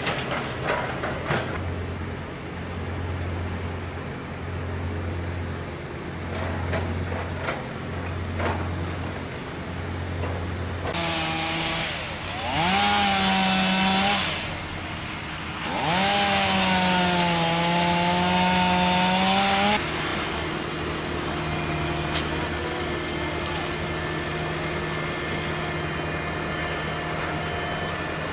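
Two-stroke chainsaw revved up to full speed twice near the middle, each time with a quick rising whine into a steady high run, about three and four seconds long. Before it, a low hum pulses about once a second, and afterwards a steadier engine hum runs on.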